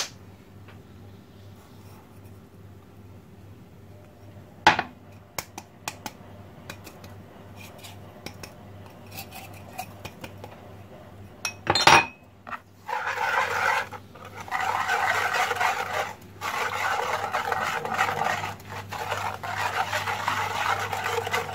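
A wire balloon whisk clinks a few times against the bowl. About halfway through, it starts beating eggs and sugar fast and steadily, with a continuous rapid clatter and scrape of the wires against the bowl that pauses only briefly. A low steady hum runs underneath.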